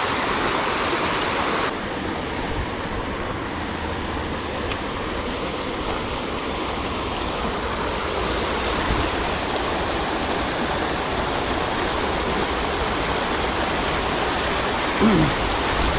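Water rushing steadily over a spillway on a high, flowing creek, a constant loud wash of falling water that turns slightly duller about two seconds in.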